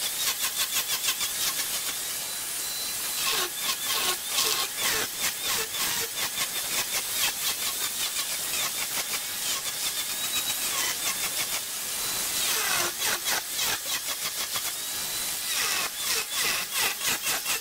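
Turning tool cutting wood spinning on a lathe, a rapid, regular chatter of the tool striking the wood, with a high squeal that comes and goes.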